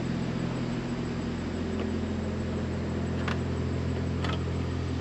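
A steady low machine hum with a few faint knocks.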